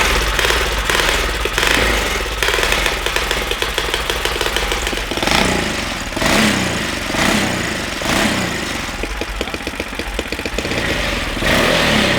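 Stage 2 Predator 420cc single-cylinder engine on an ATV running loud through a Ford Mustang 5.0 muffler, revved in several short blips.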